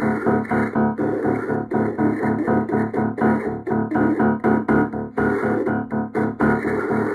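Background music: a tune of evenly repeated notes, about four a second, with a steady beat.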